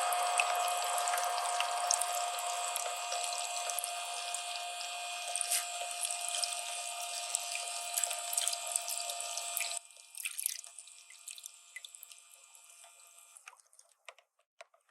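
Water running from a toy bathtub playset's faucet, a steady hissing flow that stops suddenly about ten seconds in, followed by a few small clicks.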